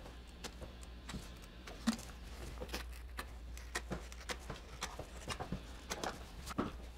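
Faint, scattered clicks and light knocks from a caulking gun being worked to lay construction adhesive, over a low steady hum.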